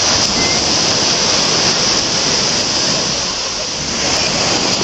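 Small waves breaking and washing up a sandy beach: a steady hiss of surf.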